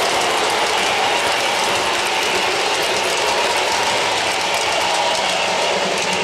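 O-gauge three-rail model train's streamlined passenger cars rolling past on the track: a steady, rapid metallic clatter of wheels and trucks on the rails.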